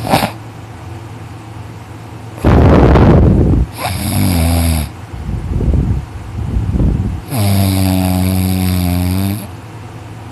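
Teenage boy snoring heavily in his sleep. A loud, rattling snore on the in-breath comes about two and a half seconds in. Droning, tone-like snores follow, the longest lasting about two seconds near the end.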